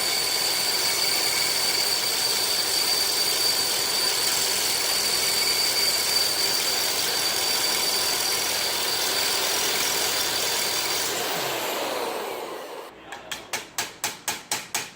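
A handheld power tool running steadily with a thin high whine, then spinning down about eleven seconds in. Near the end, sharp metal strikes start coming quickly, about four a second, like hammering.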